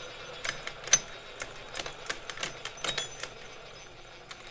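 Sharp metallic clicks from a Honda CB750 transmission's shift mechanism and gears as it is shifted on the bench, an irregular series with the loudest click about a second in.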